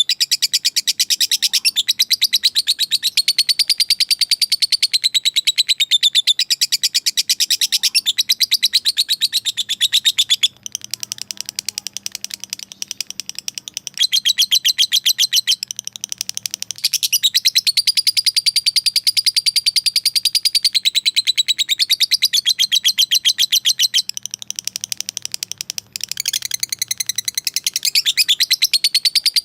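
Lovebird's long 'ngekek' call: a very rapid, high-pitched chattering trill that runs on for many seconds. It breaks off or softens briefly a few times. It is a fighter lovebird calling out to a rival.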